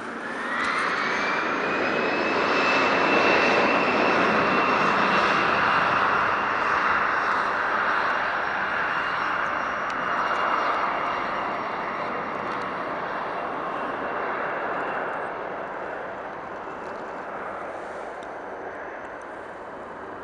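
Airliner engines passing nearby: a high whine rises over the first couple of seconds and then holds steady over a loud rush of engine noise. The noise is loudest a few seconds in and slowly fades away.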